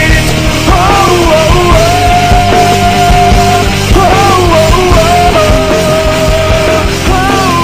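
Rock song playing: a held lead melody that bends and slides between notes over a full band with drums.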